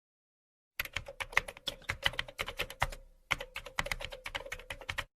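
Rapid computer keyboard typing, several clicks a second, with a brief pause about halfway through.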